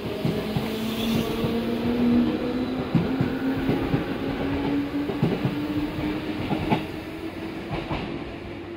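205 series electric multiple unit accelerating out of a station right beside the platform. Its traction motor hum climbs in pitch, and the wheels click over rail joints. The sound eases off near the end as the last car passes and the train draws away.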